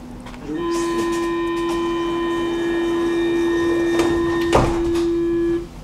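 Metro train's door-closing warning: a steady single-pitched tone sounds for about five seconds while the sliding doors close, with a thud as the doors shut about four and a half seconds in.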